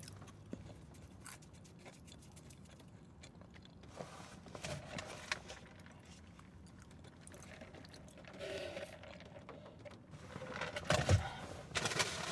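Quiet eating sounds: chewing of chicken fries with small mouth clicks, then a drink from a fast-food cup through a straw. Near the end comes louder paper rustling with a thump as the takeout bag is rummaged.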